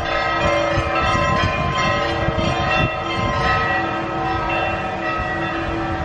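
Church bells ringing, several bells struck in turn so that their long tones overlap.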